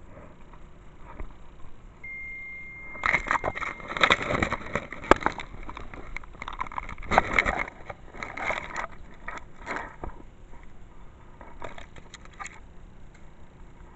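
Irregular crackling and scraping rustle of grass and weeds brushing against the microphone and being pushed through by hand, loudest from about three to ten seconds in, with a brief steady high tone just before it starts.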